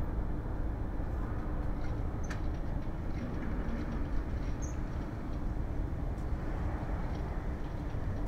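Jet airliner engines heard at a distance as a steady rumble with a faint hum, as aircraft move on the runway.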